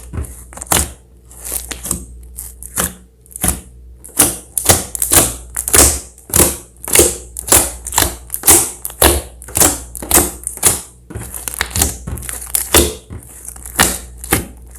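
Slime being mixed and squished by hand: a run of short, sharp wet clicks and pops, sparse at first, then about two a second.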